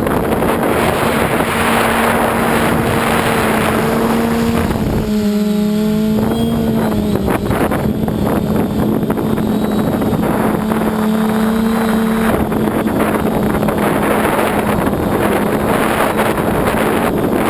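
Multirotor drone's electric motors and propellers humming under heavy wind noise on the microphone; around five to seven seconds in the wind noise drops and the motor pitch wavers up and down with the throttle.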